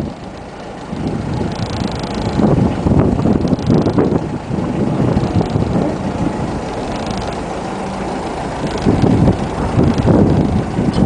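Wind buffeting the microphone in uneven gusts, over a faint low steady hum.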